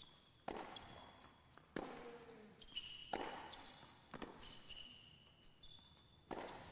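Tennis rally on a hard court: racket strikes and ball bounces in a series of sharp knocks about a second apart. Between them come short high squeaks of players' shoes on the court.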